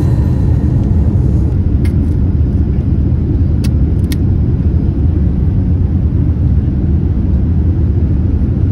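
Steady low rumble of an airliner cabin in flight, with a few short sharp clicks from about two to four seconds in.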